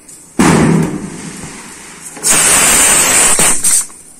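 Aluminium pressure cooker venting steam through its weight valve in two loud hissing bursts. A sudden one starts about half a second in and dies down within a second; a steadier one of about a second and a half near the end cuts off sharply. The cooker is still under pressure just after its two whistles.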